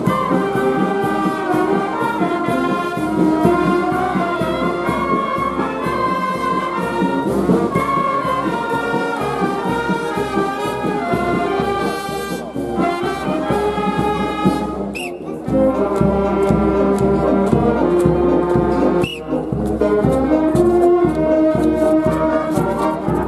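Brass band playing a tune, trombones and trumpets over a steady drum beat, with a brief break about fifteen seconds in.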